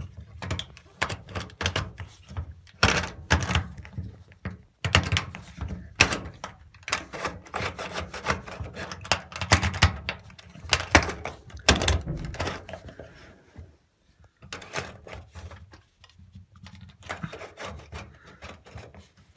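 Plastic drain-pump filter plug of an Indesit IWB5113 washing machine being worked back and forth by hand, giving a fast, irregular run of clicks and knocks with a few short pauses. It keeps catching because hair clips are jammed inside the filter.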